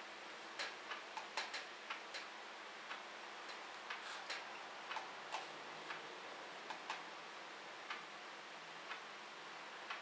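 Scattered light clicks, one or two a second at uneven intervals, over a faint steady room hum: the sound of something being worked by hand while a passage is looked up.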